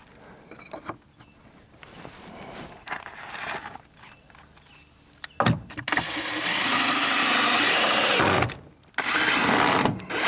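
Cordless drill driving screws through a metal corner plate into a wooden joist: light handling noise, then a steady drive of about three seconds starting about halfway through, a brief pause, and a second drive near the end.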